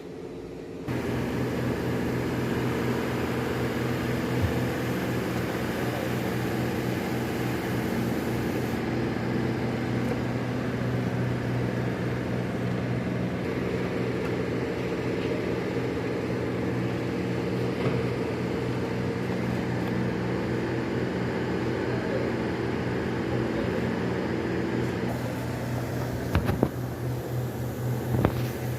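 A machine running with a steady, even hum of constant pitch, starting about a second in, with a few sharp clicks near the end.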